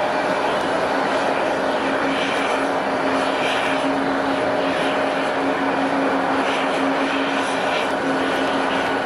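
Airliner engines running, a steady noisy rush with a low hum in it.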